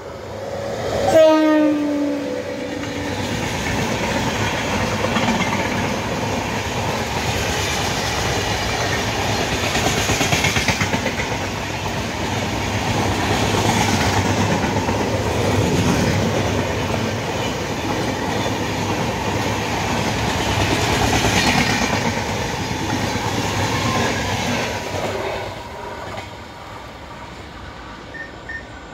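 Indian Railways 22619 Bilaspur–Tirunelveli Express passing at speed. A horn blast about a second in drops in pitch as the locomotive goes by. Then comes the steady noise of the coaches rushing past, which dies away a few seconds before the end.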